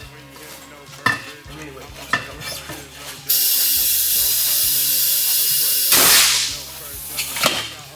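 Compressed air blasting into a stretched tire to seat its bead on the wheel: a loud steady hiss that starts suddenly about three seconds in, holds for nearly three seconds, then fades away. A few knocks come before it.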